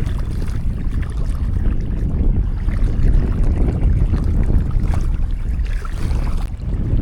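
Strong wind buffeting the microphone: a loud low rumble that rises and falls with the gusts.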